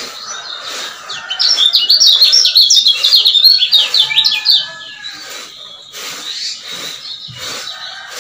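Male kecial kuning (a Lombok yellow white-eye) singing a fast run of high chirps for about three seconds, starting about a second in, with fainter background sound before and after.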